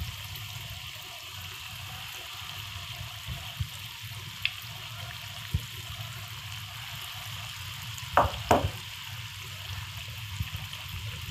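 Mysore bonda batter balls deep-frying in hot oil: a steady sizzle and bubbling, with a few light clicks and two brief louder sounds about eight seconds in.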